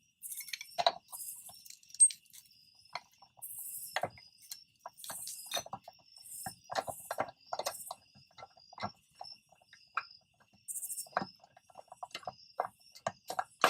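Irregular metallic clicks and clinks of a wrench and socket working loose a car wheel's lug nuts. Crickets chirp throughout in short high bursts about once a second.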